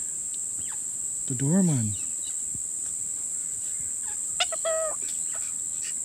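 Steady high-pitched insect chorus, with a short bird squawk about four and a half seconds in.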